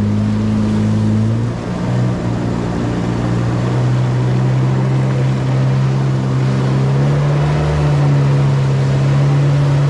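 Jet ski engine running under way with water and wind noise. Its note shifts a little in pitch a few times as the throttle changes.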